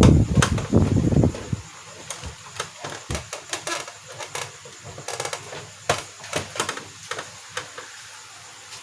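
A steady fan-like whir cuts off abruptly about a second in. Scattered light clicks and knocks of hard plastic parts being handled follow.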